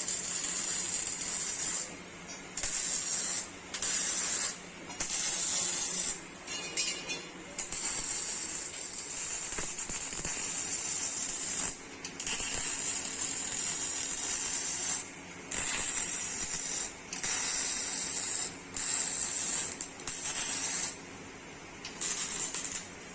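MIG/MAG welding arc on sheet metal: a steady hissing crackle in runs of one to a few seconds, broken by about ten short pauses, over a steady low hum.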